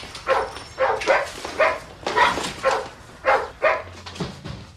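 Dogs barking over and over, about two barks a second, nine or so in all.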